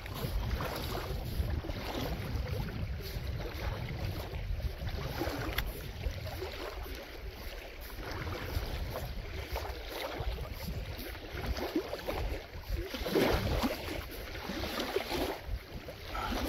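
Wind buffeting the microphone over the wash of river water, with rustling as a magnet-fishing rope is hauled in hand over hand, loudest about thirteen seconds in.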